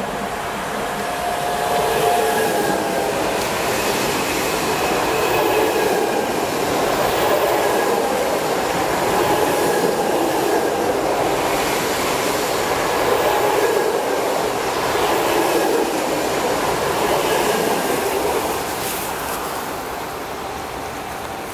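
Airport Express Class 71 electric train passing through the station at speed: a steady rush of wheels and running gear that swells about two seconds in, holds, and fades over the last few seconds as the train moves away.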